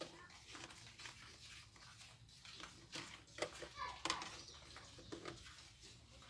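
Faint background voices, a child's among them, over a low steady hum, with a few sharp clicks about halfway through.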